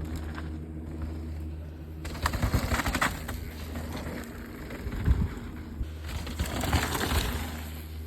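Downhill mountain bike being ridden on a trail: tyre noise on dirt with rattling and sharp knocks under a steady low rumble, getting louder and rougher about two seconds in and again around six to seven seconds.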